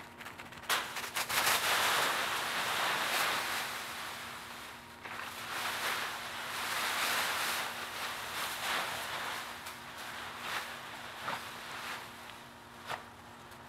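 Dry fallen leaves crunching and crackling as a dog plunges and digs through a big leaf pile. It is loudest in the first few seconds, swells again around the middle, and then thins to scattered sharp crackles.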